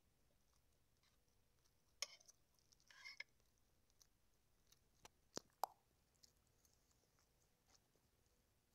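Quiet eating sounds: a metal fork clicking and tapping against a plastic plate a few times, with soft chewing and mouth noises between. Two sharper clicks come a little past the middle, the second with a brief ring.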